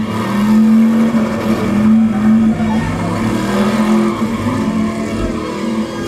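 Film car-chase soundtrack played through home theater speakers: a muscle car's engine running hard at a steady, slightly wavering pitch, with other traffic noise around it.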